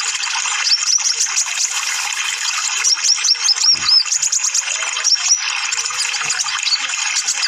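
Kolibri ninja (purple-throated sunbird) twittering: quick runs of high, sharp chirps, densest about three to four seconds in, over a steady hiss.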